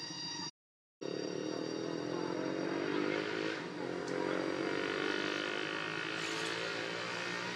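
An engine running steadily, its pitch rising slightly and easing back down. The sound cuts out completely for about half a second near the start.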